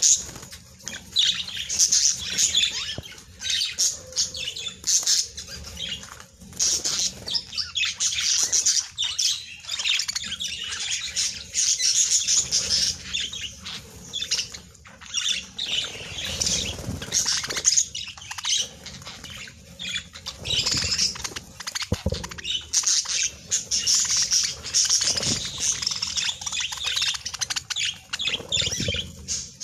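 Budgerigars chattering and chirping without pause, with a few low thumps in the second half.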